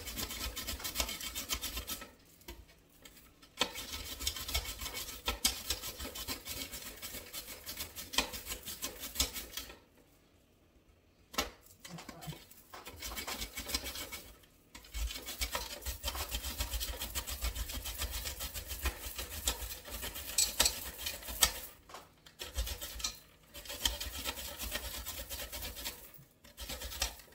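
Carrots being grated on a hand grater: fast, rasping back-and-forth strokes in long runs, stopping briefly a few times, with the shreds falling into a pan below.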